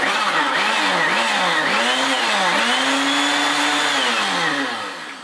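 Countertop blender motor running on frozen strawberry and banana, its pitch dipping again and again as the frozen fruit drags on the blades, then holding steadier before slowing to a stop near the end. The load is a mix too frozen to blend freely.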